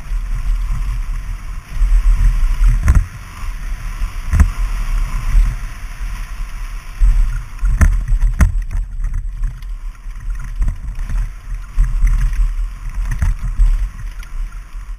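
Mountain bike ride heard through a helmet-mounted action camera's microphone: a heavy, buffeting wind rumble on the mic, with sharp clacks and rattles as the bike hits bumps on rough trail, a few of them loud. It cuts off abruptly at the end.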